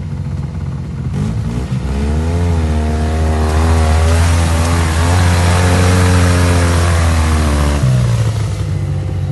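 650 cc off-road buggy engine accelerating about two seconds in, running at high revs with small rises and falls in pitch, then dropping back toward idle near the end.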